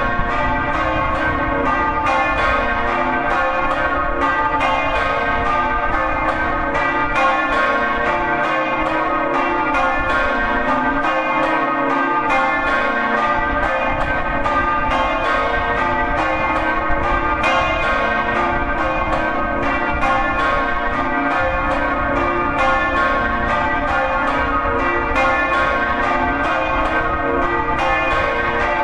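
Peal of three swinging bronze church bells, rung in the Friulian swinging style, their clapper strokes overlapping in a steady rhythm of a few strikes a second over a continuous ringing hum.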